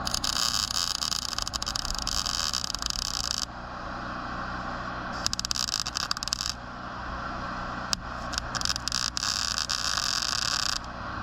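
Electric arc welding crackling in three bursts, the first about three seconds long, the next two shorter, over the steady hum of an engine running underneath.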